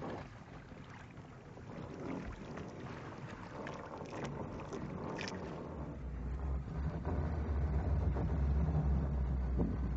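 A boat's engine running, its low steady sound growing louder and taking over about six seconds in, over a hiss of wind and water.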